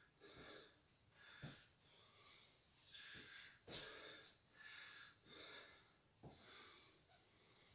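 Faint heavy breathing of a man recovering after shadowboxing: drawn-out breaths every second or so, with a few short sharp exhales through the nose.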